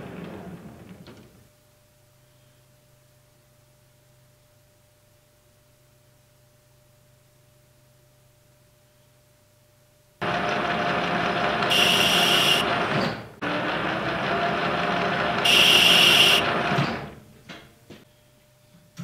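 Metal lathe winding down, then a stretch of near quiet with a faint low hum. About ten seconds in the lathe starts abruptly and runs for about seven seconds, with two short bursts of high hiss, while a threading tool cuts internal threads in a ductile iron gland nut. It then stops, leaving a few small clicks.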